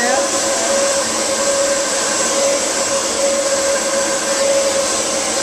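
Hand-held hair dryer blowing steadily with a constant whine, used to dry the bangs smooth while they are brushed.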